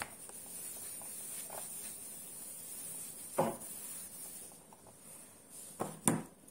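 Handheld whiteboard eraser wiping across a whiteboard, a steady scrubbing for the first four seconds or so. A sharp knock comes about three and a half seconds in, and two more near the end, the last the loudest.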